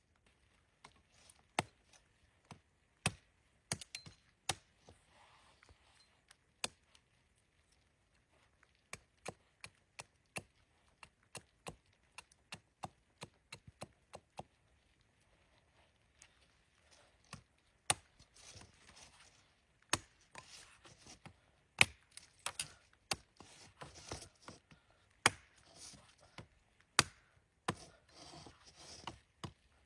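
Chopping: a series of sharp, irregularly spaced knocks, sparse at first and coming faster and denser from about halfway through, with soft rustling between strokes in the second half.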